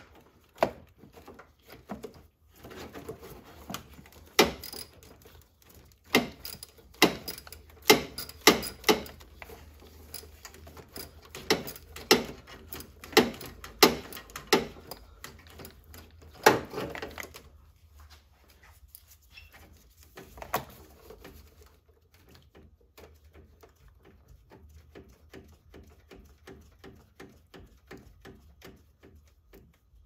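A socket wrench being worked on the 13 mm nut at the starter solenoid: irregular sharp metal clinks and knocks, the loudest about four and a half, eight and sixteen seconds in. From about twenty-two seconds in, a run of quick, even, lighter ticks as the ratchet is worked.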